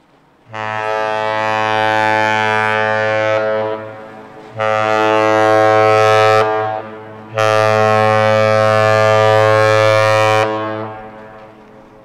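Great Lakes freighter's air horn (the lake carrier Michipicoten) sounding three steady blasts, the middle one shorter, the last fading with an echo. It is a horn salute to the onlookers as she leaves port.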